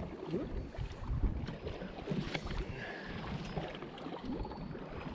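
Wind buffeting the microphone over water lapping against a small boat's hull, with scattered light knocks.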